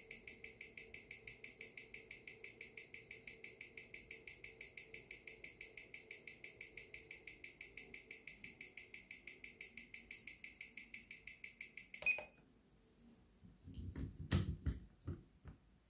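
Amplified ticking of a Seiko 6R15 automatic movement through a timegrapher's speaker, an even six beats a second (21,600 bph). The movement is running at a low amplitude of about 226°, which the owner puts down to bad factory lubrication. About 12 s in, the ticking cuts off with a click, and then there are a few knocks and rustles as the watch holder is handled.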